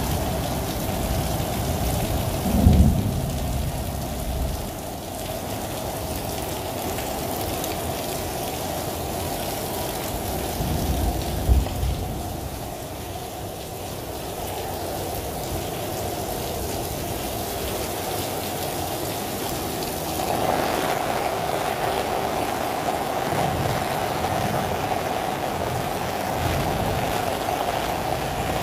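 Steady rain with a constant hum underneath, and two brief low rumbles about 3 and 12 seconds in. About 20 seconds in the rain noise grows fuller and brighter.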